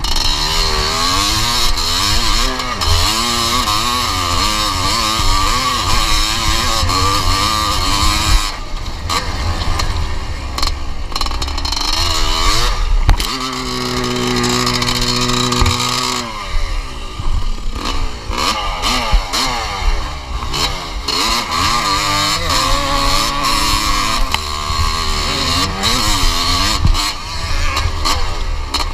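1981 Yamaha YZ250's single-cylinder two-stroke engine revving up and down hard at race pace. About halfway through, the revs drop to a steady idle for roughly three seconds, then it revs up again.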